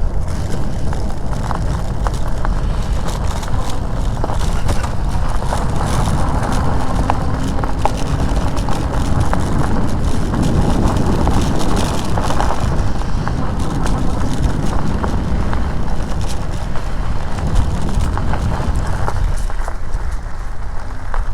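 Wind buffeting the microphone of a moving e-bike, a steady rumble with scattered clicks and rattles throughout.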